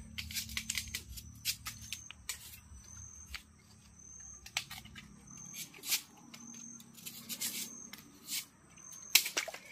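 Machetes cutting and peeling asam payak palm shoots: a string of sharp scraping, cutting and tearing strokes as the fibrous sheaths are stripped, the loudest stroke near the end. A steady high insect drone runs underneath.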